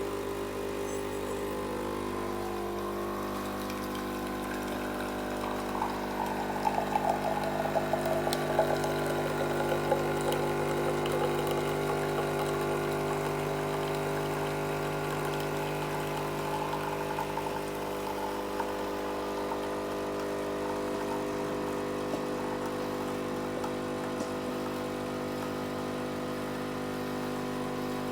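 Amazon Basics espresso machine's pump running with a steady hum. For a few seconds near the middle a crackling sputter with a falling tone rides over it.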